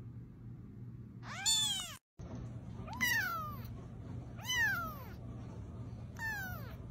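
Young kittens mewing: four high, thin mews, each rising then falling in pitch. The last three come about a second and a half apart.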